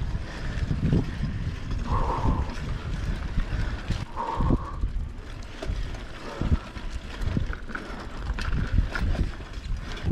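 Bicycle being ridden along a street, with wind buffeting the microphone and the bike rattling and knocking over the road surface. There are two short squeaks, about two and four seconds in.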